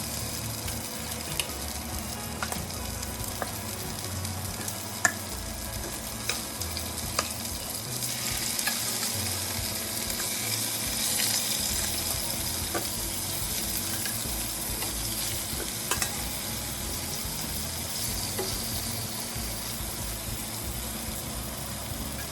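Pieces of fish frying in hot mustard oil in a pot: a steady sizzle with scattered short pops and crackles, the sizzle growing louder about eight seconds in.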